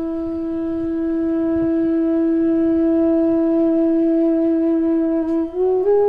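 Background music: one long held note that steps up to higher notes near the end.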